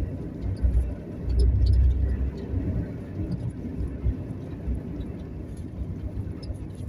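Inside a moving car, road and engine noise rumble steadily. The rumble swells louder for about a second, roughly a second and a half in.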